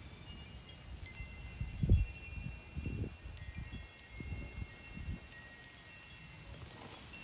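Wind chimes ringing, several clear high tones struck at different moments and overlapping as they ring on. Underneath, low rumbling bumps on the microphone, the loudest about two seconds in.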